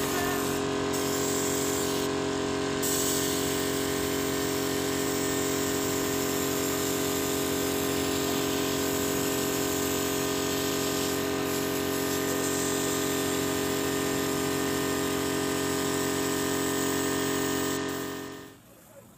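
Small electric airbrush compressor humming steadily, with the hiss of air spraying from the airbrush. It fades away near the end.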